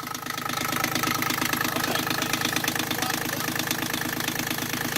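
Yanmar 3GM three-cylinder marine diesel running steadily at idle just after starting, with an even, rapid beat.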